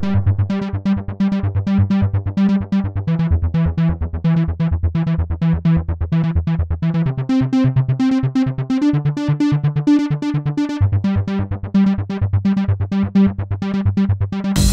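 Electronic outro music: a synthesizer keyboard plays quick repeated notes, about four a second, over a moving bass line. Louder full-band sound enters right at the very end.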